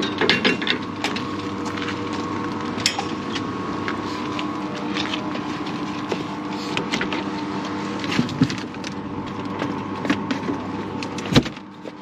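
Espresso-making clatter: a portafilter clinking and knocking against the machine and a knock box as the spent coffee puck is knocked out, over a steady mechanical hum. A heavy thump near the end, after which the hum drops away.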